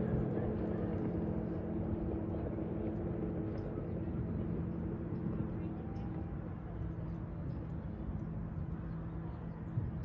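A distant engine drones with a steady low hum that slowly fades away.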